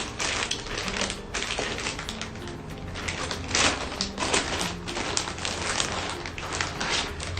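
Plastic packaging crinkling and crackling as it is handled and opened, a dense run of irregular rustles and clicks, over quiet background music.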